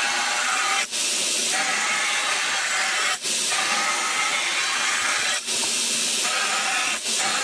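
Belt grinder with a coarse 36-grit belt grinding the profile of a 5 mm 1095 steel knife blank, a steady rasping hiss. It drops briefly about every two seconds as the blank comes off the belt.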